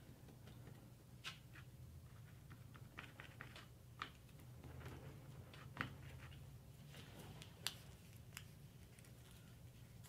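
Faint, scattered ticks and rustles of paper being handled and a glue brush dabbing on it, over a low steady hum.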